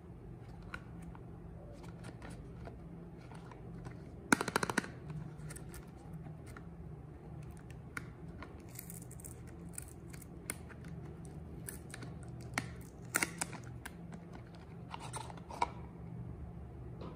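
A Dove Original soap bar's paperboard box being handled and opened: scattered taps and crinkles, with a short burst of rapid crackling about four seconds in as the box is opened, then more crinkles and taps as the bar is taken out.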